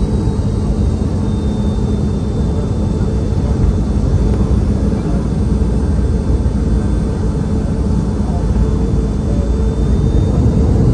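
Cabin noise of a Boeing 717-200: a steady low rumble from its rear-mounted Rolls-Royce BR715 turbofans at low power, with a thin high whine that settles slightly lower in the first second, then holds steady.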